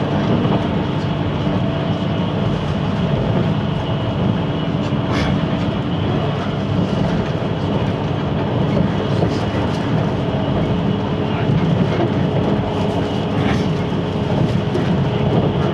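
Running noise of a JR 583 series electric train heard from inside the passenger car: a steady rumble of wheels on rail with a faint hum and a few faint clicks.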